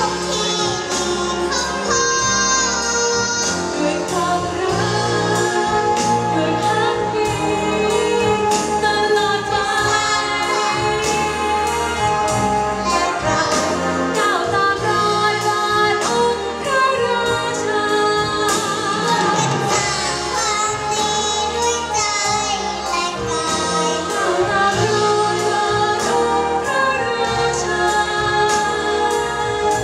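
Concert wind band accompanying a female singer in a slow song; her held notes waver with vibrato over sustained band chords and bass.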